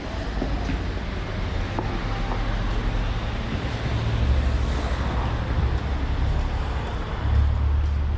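Urban street ambience: a steady wash of road traffic noise with a deep rumble that swells about halfway through and again near the end.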